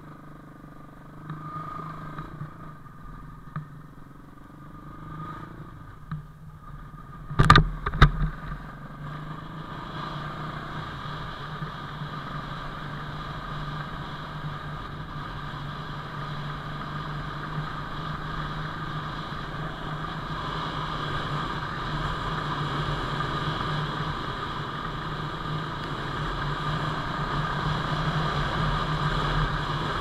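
Suzuki Intruder VS700 V-twin motorcycle engine running steadily. There are two sharp knocks about seven and eight seconds in. After that a rushing wind noise joins in, and the sound grows gradually louder.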